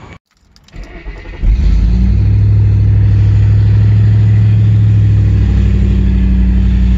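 Ford Mustang's engine starting up, catching about a second and a half in and settling into a loud, steady idle, heard from inside the cabin.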